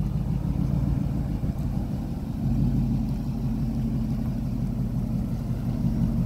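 Nissan Armada's V8 engine running at low speed as the SUV pulls slowly forward: a steady low rumble that grows a little louder about two and a half seconds in.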